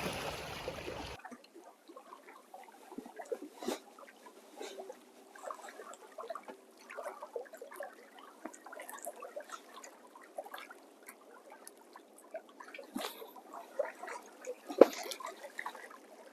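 Small splashes and drips of lake water with scattered light ticks, and a few sharp knocks, the loudest near the end.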